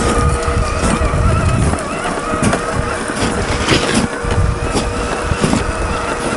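Tamiya CC-01 radio-controlled car with a 55-turn brushed electric motor driving, its motor and gearbox giving a steady whine. Irregular crunches and knocks from the chassis and tyres come through, over a low rumble.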